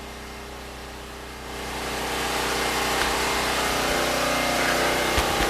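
Predator 6500 non-inverter generator engine running steadily with an even hum. About a second and a half in, a louder hissing, rushing sound swells in and holds. A few low thumps come near the end.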